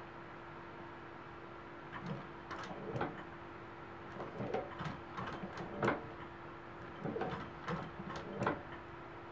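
Consew industrial sewing machine stitching slowly through a leather and cobra-hide belt, a few clunking stitches at an uneven pace, starting about two seconds in over a steady hum.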